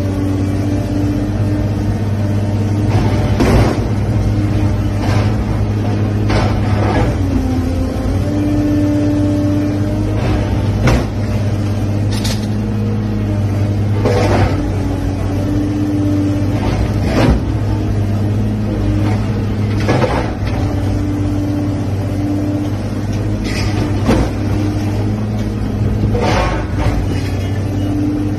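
Excavator's diesel engine running steadily with its hydraulics whining under load, as the grapple slams a heavy steel slab down onto a car body again and again: about ten crashing metal impacts, two to three seconds apart, crushing the car flat.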